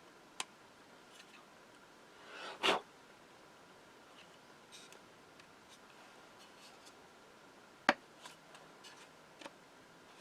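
Hard plastic model-kit parts, a solid rocket booster and core stage of a 1:144 Airfix SLS kit, being pressed together and worked on a tight-fitting mounting post. There is a scraping rub about two and a half seconds in, a sharp click near eight seconds and a few small clicks after it.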